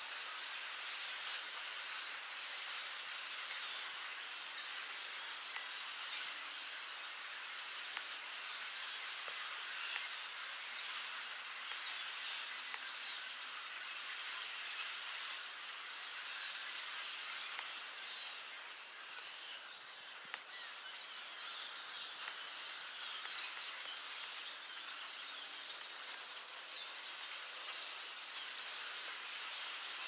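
A large flock of blackbirds calling together in the trees: a dense, steady din of many overlapping chirps.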